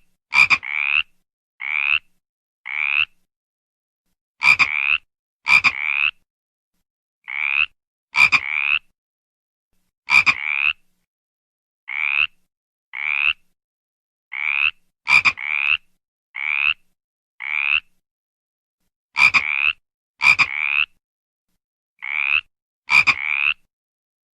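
A frog croaking in short calls, about one a second and sometimes two in quick succession. Each call rises slightly in pitch, and some begin with a sharp click.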